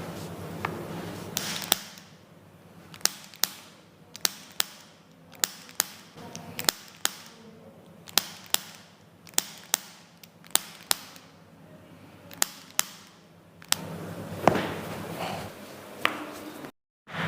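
A run of sharp clicks during a chiropractic adjustment, most in quick pairs, about one pair a second. A louder stretch of handling noise follows near the end.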